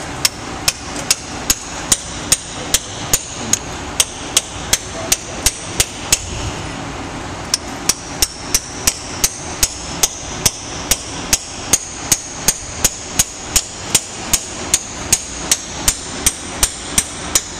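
Hammer striking a hand-held chisel in steady light blows, about two to three a second, chipping hardened marine concretion off an iron steam engine. Each blow has a short metallic ring. The blows pause briefly about six seconds in, then go on at the same pace.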